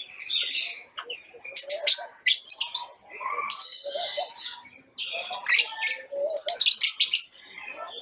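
A flock of lovebirds chattering: rapid, shrill chirps and squeaks in repeated bursts.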